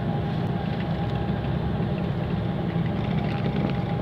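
Steady engine drone and tyre-on-road noise heard from inside a coach bus cruising on a highway, with a faint steady whine above it.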